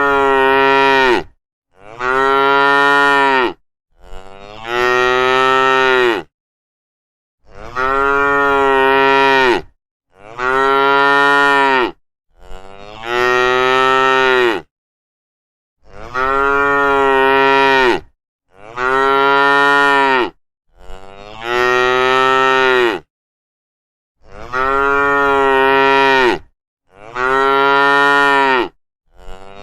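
A cow mooing again and again: about a dozen drawn-out, steady moos of about two seconds each, one every two to three seconds, with dead silence between them.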